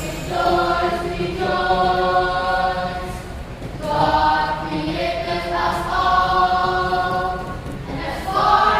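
A school choir singing, holding long sustained notes in several phrases of about one to two seconds each.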